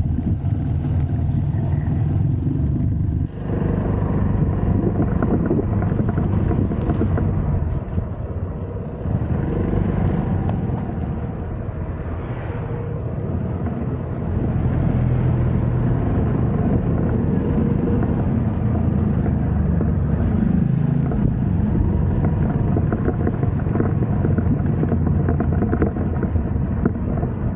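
Small single-cylinder four-stroke engine of a TVS XL100 moped running steadily, with an abrupt change in its sound about three seconds in.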